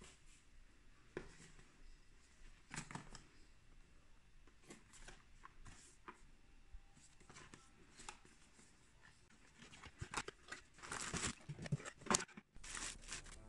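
Hands handling a cardboard product box: faint scrapes, taps and rustles of the card, denser and louder from about ten seconds in as the box is opened.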